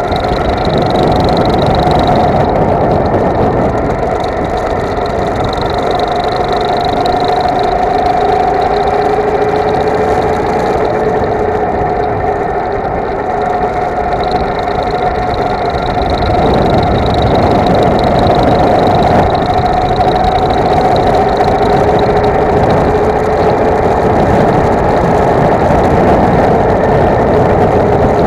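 Go-kart engine running continuously at racing speed, recorded on board, its steady droning note wavering slightly in pitch. The engine note eases a little about halfway through and then picks up again.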